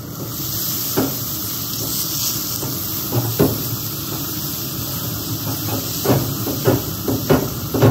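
Water-saturated sponge head of a Grill Rescue brush hissing into steam as it is scrubbed across grill grates heated to about 400°F, with several short scrubbing strokes.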